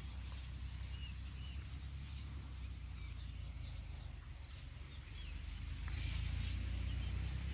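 Outdoor wind noise rumbling low on the microphone, with faint high bird chirps scattered through. About six seconds in, a louder hiss sets in.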